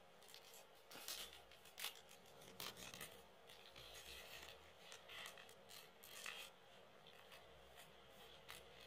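Faint, intermittent rustling and scraping of thin plastic against card: a trading card being slid into a soft plastic sleeve by gloved hands.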